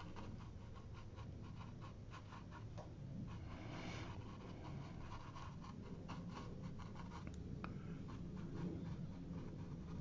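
Round watercolour brush dabbing and dragging on textured watercolour paper: faint, irregular scratchy taps as small blobs of paint are stippled on.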